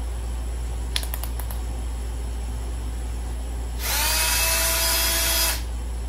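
Handheld cordless drill: a few sharp clicks, then the motor spins up with a short rising whine, runs steadily for under two seconds and stops. A steady low hum runs underneath.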